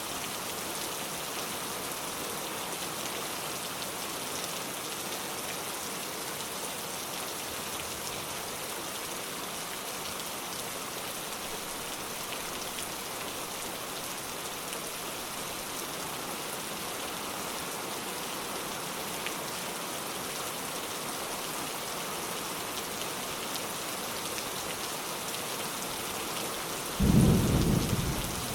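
Steady rain falling on surfaces, an even hiss. Near the end a single rumble of thunder starts suddenly and fades within a couple of seconds.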